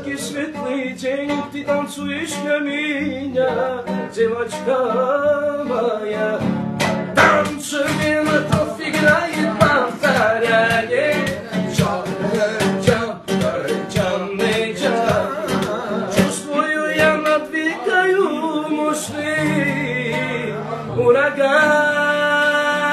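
A man singing a song while playing a classical guitar, strumming and plucking chords as he sings.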